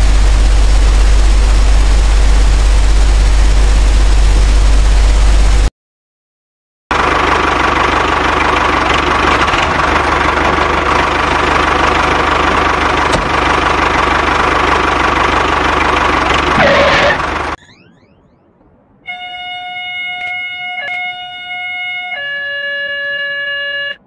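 A train rushing past with a heavy rumble for about six seconds and then cutting off. After a short silence comes a machine engine, the wheel loader's, running for about ten seconds. Near the end, steady horn-like electronic tones sound and step to a new pitch shortly before the end.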